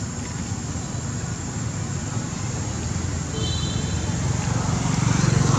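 Steady low rumble of motor traffic, growing louder near the end as a vehicle approaches.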